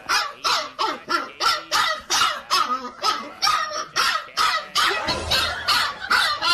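A dog barking rapidly and without pause, about three to four short barks a second.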